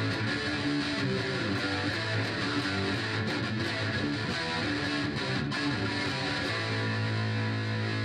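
Instrumental outro music playing steadily, with a low note held through the last second and a half.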